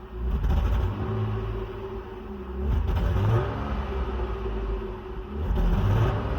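BMW E39 520i straight-six engine running rough on failing ignition coils, its note uneven and swelling louder three times. The unevenness is the sign of misfiring from worn-out original coil packs.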